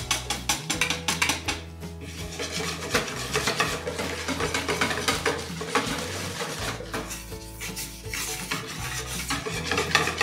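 A wire whisk beating chickpea flour into water in a bowl, its wires clicking rapidly and continuously against the bowl's sides as the batter is mixed.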